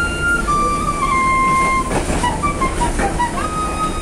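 Transverse bamboo flute playing a slow melody of long held notes that step down in pitch, with a few shorter notes in the middle, over the steady rumble and clatter of a moving train carriage.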